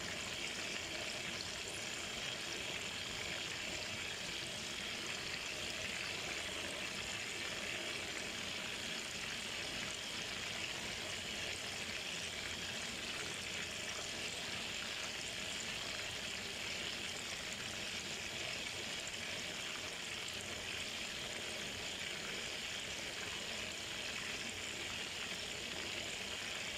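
Pieces of fish frying in a pan of hot oil: a steady, even sizzle.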